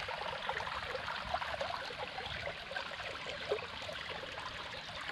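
Small shallow creek babbling over rocks, a steady trickling gurgle.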